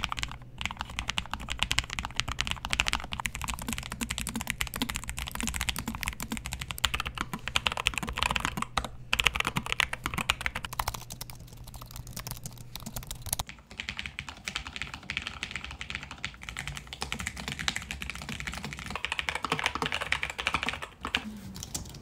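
Continuous typing on keyboards. It starts on the Lofree Edge, a low-profile mechanical keyboard with Kailh POM switches, and then moves to an Apple Magic Keyboard. There are short breaks and changes in tone where the recording switches between keyboards and microphones.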